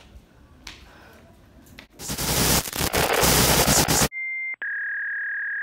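A loud burst of static-like hiss for about two seconds, cut off abruptly, followed by two electronic beeps: a short higher one, then a longer, slightly lower one.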